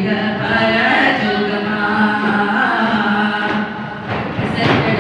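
Daf muttu: a group singing a chant-like song in chorus, with a few sharp strikes on daf frame drums near the end.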